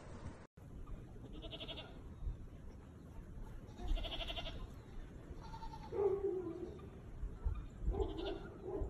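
Goat kids bleating: a few short calls spaced a couple of seconds apart.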